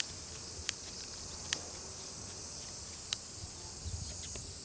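A steady, high-pitched chorus of insects, with three short sharp clicks and a few faint ticks near the end.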